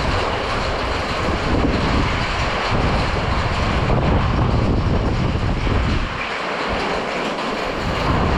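Heavy rain pouring down in a steady, loud rush during a thunderstorm.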